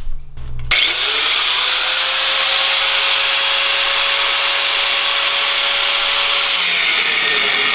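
Angle grinder starting up just under a second in and cutting through a steel bar on a go-kart frame: a loud, steady grinding hiss over the tool's motor whine, which sags a little near the end as the wheel bites.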